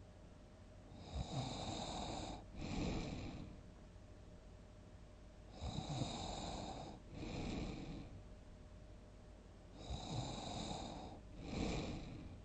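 A sleeping person snoring: three loud snores about four seconds apart, each a longer snore followed after a brief break by a shorter second breath sound.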